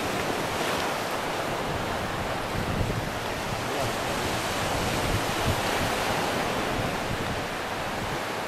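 Small sea waves breaking and washing up a sandy beach, a steady rush of surf, with wind buffeting the microphone.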